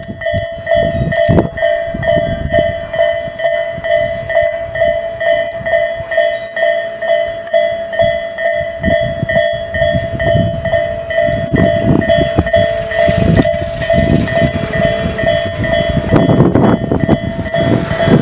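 Japanese electronic level-crossing warning bell ringing in a steady, evenly repeating clang. Under it, a train rumbles and clatters over the rails of the crossing, with uneven bursts of wheel noise that swell near the end.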